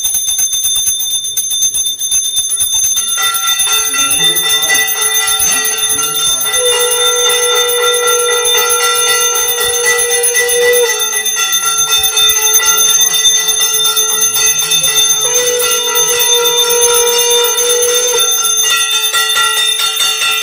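Brass puja hand bell rung rapidly and continuously, giving a steady metallic ringing. About three seconds in, further ringing tones join, including two long held notes a few seconds each.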